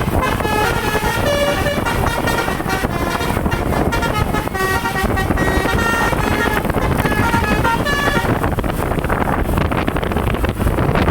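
A bus's telolet basuri multi-tone air horn plays a fast melody of short notes, which stops about eight seconds in, leaving a steady rumble of engine and wind noise.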